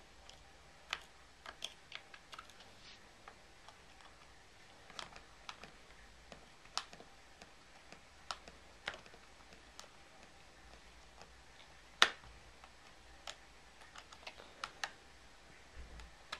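Small screwdriver clicking and scraping against tiny screws and the metal bracket in the battery bay of a white late-2006 MacBook: scattered light clicks, irregularly spaced, with one louder click about twelve seconds in.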